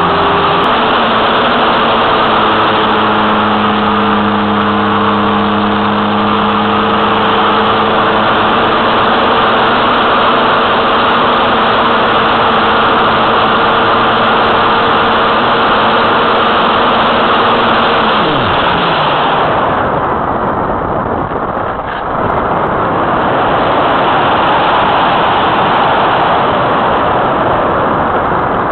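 Wind rushing over the wing-mounted keychain camera of an Easy Glider Pro electric motor glider in flight, over the steady hum of its electric motor and propeller. About two-thirds of the way through, the motor is cut and its hum slides down in pitch and dies away, leaving only the wind noise of the glider gliding.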